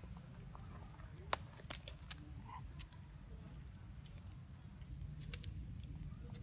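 A macaque chewing and biting off leaves: scattered sharp clicks and snaps, the loudest just over a second in, over a steady low rumble.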